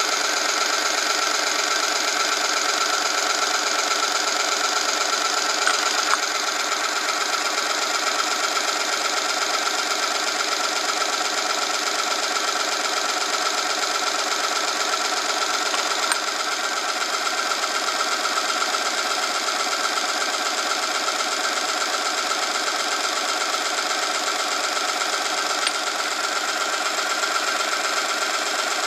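Oil-film strength test rig running: its electric motor spins a ring against a test sample bathed in 5W30 engine oil heated to 100 °C, giving a steady dense whine and rubbing. A few light clicks about six, sixteen and twenty-six seconds in as weights are added to load the sample.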